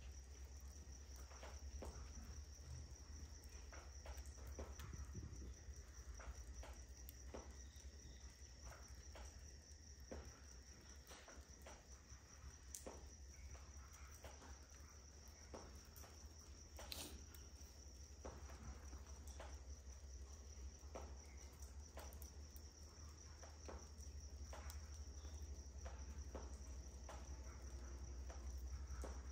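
Faint crackling of a wood log fire burning on glowing embers: scattered small pops and ticks, with one sharper pop about seventeen seconds in. Under it run a steady high-pitched insect trill and a low hum.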